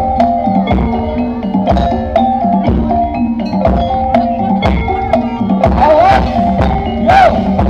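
Bantengan accompaniment music in the East Javanese gamelan style: metallophones playing a repeating stepwise melody over a deep drum stroke about once a second. A few bending, wavering notes enter near the end.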